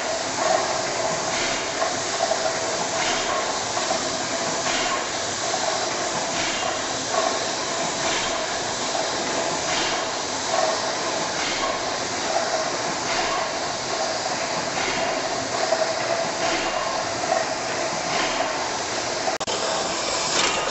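The Firgrove Mill steam engine running, a large 1907 mill engine with its flywheel turning: a steady mechanical running sound with a soft regular beat about every second and a half.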